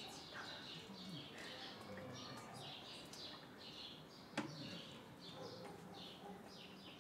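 Small birds chirping over and over, faint, in quick short falling notes. A single sharp click sounds about four and a half seconds in.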